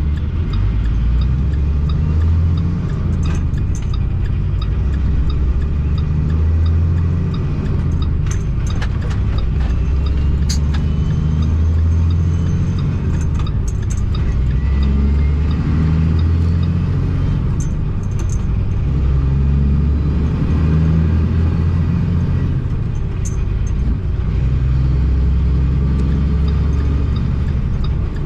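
International ProStar semi-truck's diesel engine running, heard from inside the cab as a steady low rumble, with occasional light clicks.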